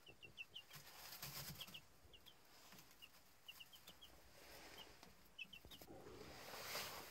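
Faint peeping of two-week-old chicks: many short, high chirps, often in quick pairs or threes, over soft rustling in their straw bedding.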